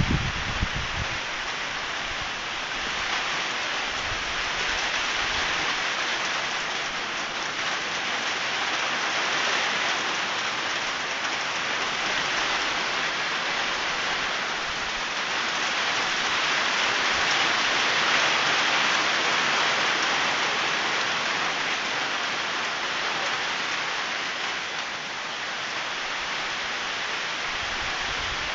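Steady rain falling, a continuous even hiss that swells slightly heavier a couple of times.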